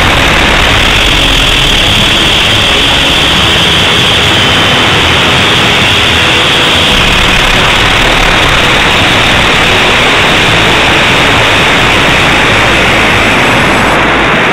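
Steady loud rushing noise from the onboard camera of a small two-stage amateur rocket climbing after launch: motor exhaust and air rushing past the body.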